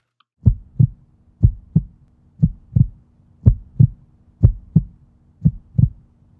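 Heartbeat sound effect: double 'lub-dub' thumps about once a second, six beats in all, over a faint steady low hum.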